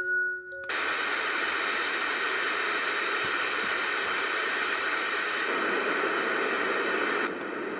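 Baby sound machine playing through its small speaker: the last notes of a chime melody, then, from under a second in, a steady white-noise hiss that steps down to a quieter hiss near the end.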